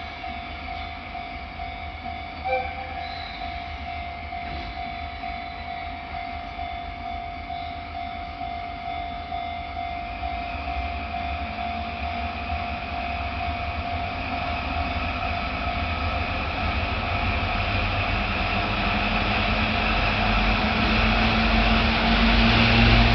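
Level crossing warning bell ringing steadily while a train approaches, its rumble and rail noise growing louder toward the end. A brief louder tone sounds about two and a half seconds in.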